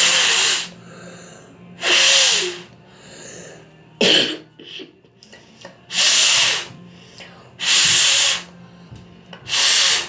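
A person blowing hard, short puffs of air into a wet fidget spinner part to clear the water out: five strong breaths about two seconds apart, with a few small plastic clicks in between.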